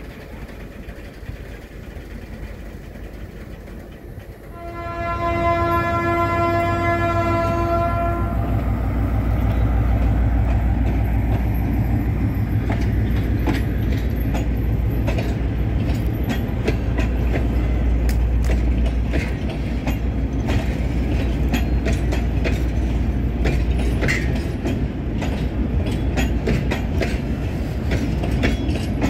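A GM G22CU diesel locomotive's horn sounds one long steady note, starting about four and a half seconds in and lasting close to four seconds. With it a heavy low rumble of the train sets in and continues as the container flat wagons roll past, their wheels clicking over the rail joints, the clicks coming thicker in the second half.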